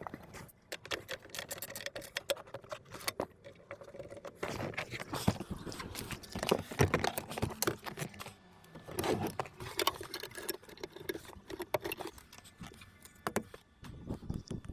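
Irregular clicks, rattles and light knocks of small parts being handled, such as plastic trim, wiring and connectors.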